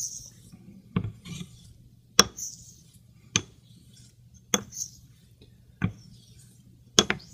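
Straight razor being honed on a wet Shapton Pro water stone: a sharp click each time the blade is rolled over on its spine at the end of a stroke, seven in all about every second, with a faint swish of the steel across the stone between clicks.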